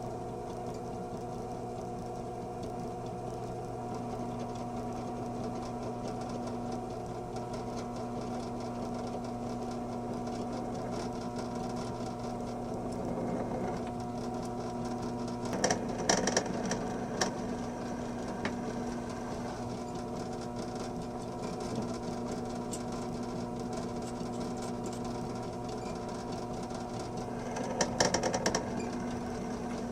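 Electric drill running steadily as a small pilot bit drills through the steel screw of a bench vise, with two short bursts of louder scraping chatter, one about halfway through and one near the end.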